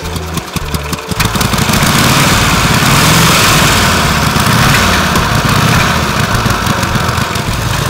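1915 Harley-Davidson's 61 cubic inch 45-degree V-twin, pedal-started, firing in separate beats at first and then catching about a second in and running steadily and loud.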